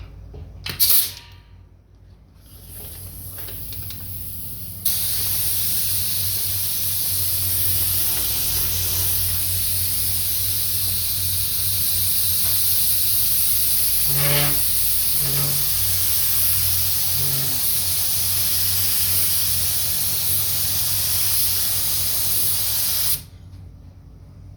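A sharp click about a second in, then a long steady hiss of white nitrocellulose lacquer being sprayed, cutting off sharply near the end; it is a base coat going on over primer in a finish touch-up. Three short low hums sound partway through the spray.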